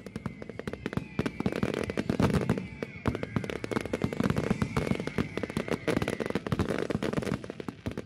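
Fireworks display: a dense, unbroken run of crackling bursts and bangs, with a faint steady high whistle running under it.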